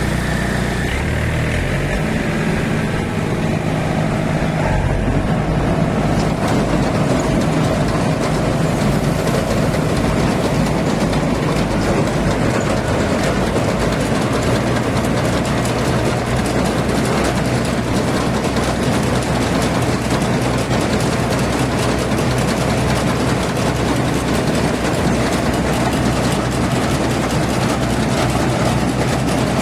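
Yanmar AW70V combine harvester running: a steady diesel engine note under the dense, even rattle of the machine's working parts. The engine note shifts in the first few seconds, then holds steady.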